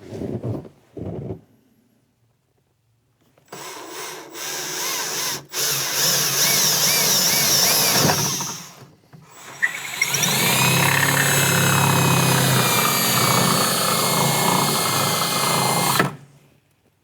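Electric drill boring holes through a golf cart's painted dash panel: a few short blips, then two long runs of the drill with a brief stop between them, the second run louder and ending abruptly.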